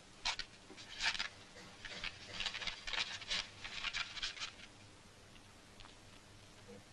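Paper rustling and crackling as a document is taken and opened: irregular crackles for about four and a half seconds, then only a few faint ticks.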